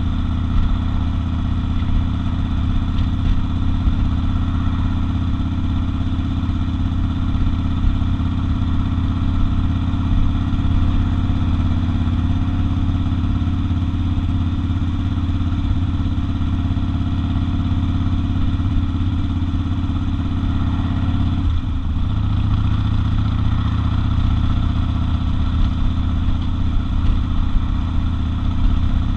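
Harley-Davidson XL 1200 Custom Sportster's air-cooled V-twin engine running steadily under way while cruising. The engine note dips briefly about three quarters of the way through, then settles slightly lower.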